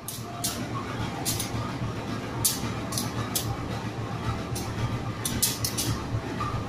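Two diesel-electric locomotives, CC 203 and CC 201, shunting slowly: a steady low engine rumble, with frequent short, sharp high hisses.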